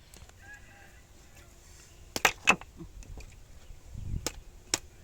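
Faint clucking of chickens, then several sharp knocks or clacks: a loud pair a little over two seconds in and two more near the end.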